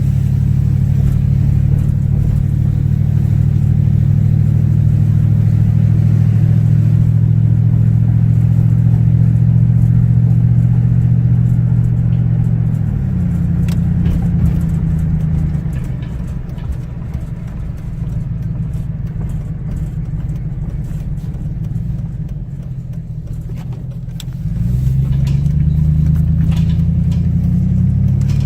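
Car engine and road noise heard from inside a moving car, running steadily at first. About 13 seconds in the engine note falls away and the car runs quieter, as when slowing or coasting. About 25 seconds in the note rises again as the car picks up speed.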